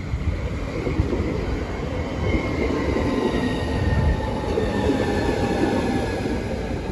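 Hitachi Class 395 Javelin electric multiple unit rolling past close by as it slows into the platform. A steady rumble of wheels on rails runs under a faint whine that falls gently in pitch.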